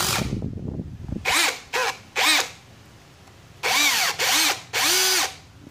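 Cordless brushless hammer drill in screw mode, driving an M8 tap into steel. For about the first second there is a rough, dense grinding. Then the motor whines in about six short trigger bursts, each rising and falling in pitch, while the chuck slips on the tap.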